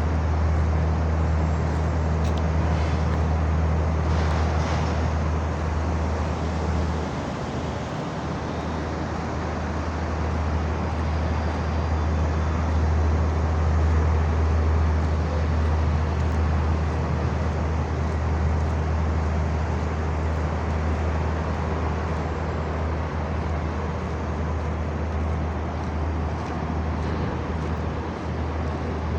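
Steady low rumble of engines and traffic, with a continuous deep drone under a wash of city noise.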